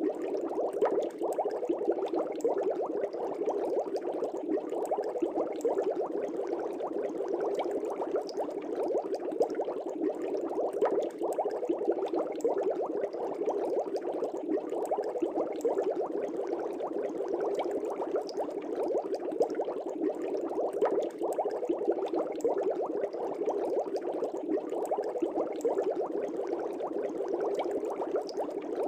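Steady, continuous bubbling of air bubbles rising through water in a fish tank: a dense, even stream of small bubbling pops with no pauses.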